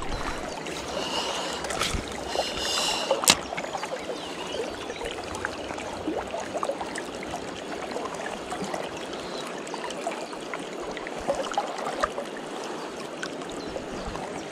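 Steady rush and trickle of a fast mountain river flowing around a wading angler, with small ticks from the spinning reel as he cranks in the lure.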